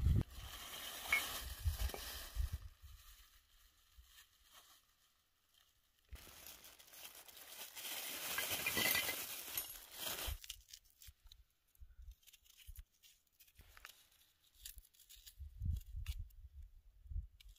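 Thin plastic bag crinkling as it is handled and cut open with a small knife, the crackle loudest for a few seconds in the middle, followed by scattered light clicks and a few low thumps near the end.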